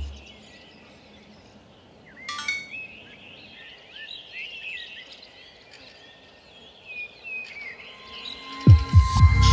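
Small birds chirping and twittering over a faint outdoor background, with a short bright click about two seconds in. Near the end a few deep falling thumps, the loudest sounds here, come in with electronic music.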